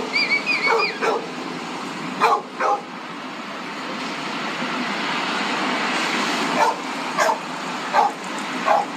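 An enraged dog barking in short, sharp barks, about ten in all, several in quick succession at the start, a few high yelps among them, then more spread out towards the end. A steady rush of traffic noise swells under the barking in the middle.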